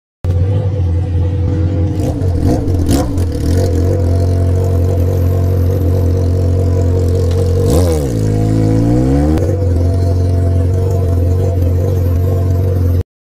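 Yamaha XJ6's inline-four motorcycle engine idling loud and steady through a muffler-less straight pipe. About eight seconds in the engine note dips and climbs back up over a second or so, a light touch of the throttle, then settles to idle again.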